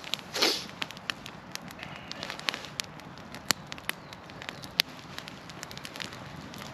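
Small wood fire crackling, with irregular sharp pops, and a brief rushing burst about half a second in.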